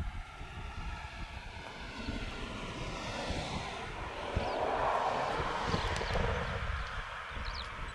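Military aircraft passing, its engine noise swelling to a peak about five seconds in and then easing off.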